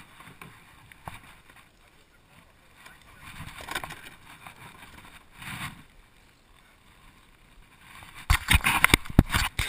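Handling noise from someone climbing into a plastic sit-on-top kayak at the water's edge: faint scuffs and scrapes, then from about eight seconds in a run of loud knocks and scrapes close to the microphone.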